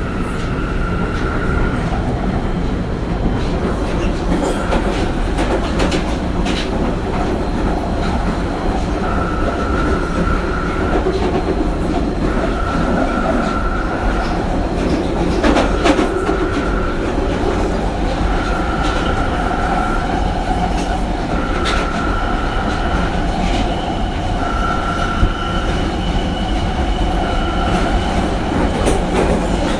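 Inside a moving train carriage: steady running rumble, with wheels clicking over the rails now and then. A high tone comes and goes in short stretches of about a second, every few seconds.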